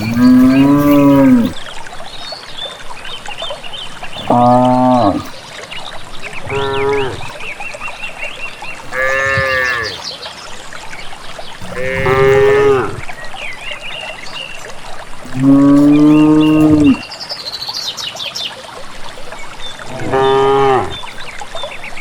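Cattle mooing again and again: seven loud, drawn-out moos of about a second each, several seconds apart, each rising and falling slightly in pitch.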